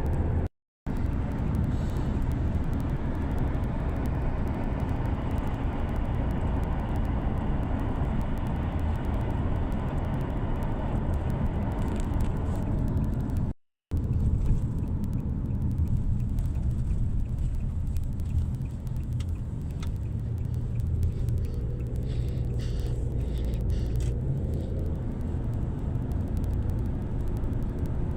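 Steady low rumble of a moving road vehicle, broken by two brief total dropouts, one just after the start and one about halfway through.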